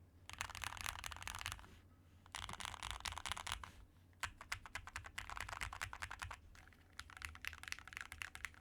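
Typing on a Keychron Q2 Pro mechanical keyboard with hand-lubed Gateron Milky Yellow Pro switches, foam and tape mods inside the case, and GMK-clone keycaps. The keystrokes come in four quick runs, with short pauses between them.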